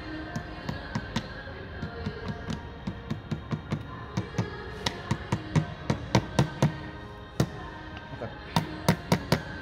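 Repeated sharp metal taps, a hammer and tool striking the metal band clamp on a CV axle boot to crimp it tight, a few a second and loudest in the second half. Background music plays underneath.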